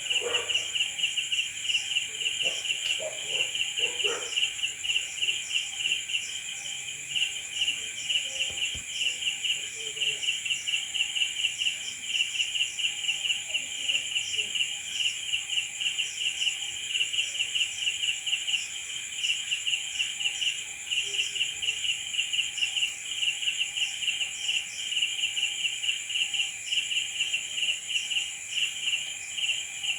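Crickets chirping at night: rapid pulsed chirps in unbroken trains, over a steady, higher-pitched continuous trill.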